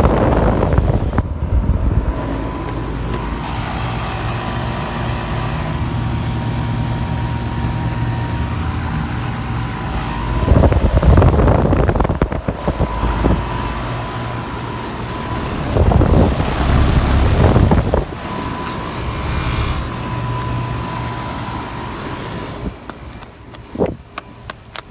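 Outdoor central air-conditioner condensing units running: a steady compressor hum with a steady tone and the condenser fan, the 2004 Goodman 3-ton giving way to a 2004 Ruud Achiever 4-ton about sixteen seconds in. Louder low rumbles come twice, around eleven seconds and again around sixteen to eighteen seconds.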